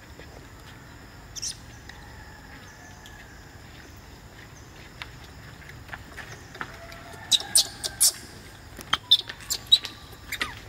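Newborn macaque giving short, sharp, high-pitched squeaks: one about a second and a half in, then a quick run of them in the last few seconds.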